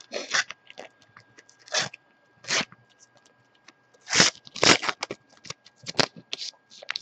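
Foil sticker packet crinkling and crackling in a string of sharp bursts as it is handled and torn open.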